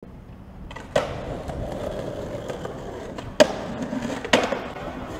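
Skateboard wheels rolling on concrete, with three sharp clacks of the board hitting the ground or ledge: one about a second in, the loudest about three and a half seconds in, and another about a second later.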